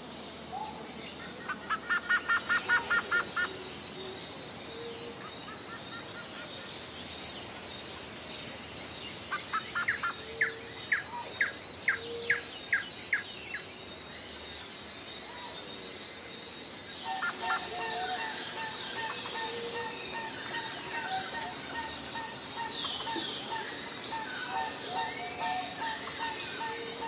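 Songbirds singing: bursts of rapid chirping trills in the first half, then a busier, steadier chorus of repeated calls through the second half.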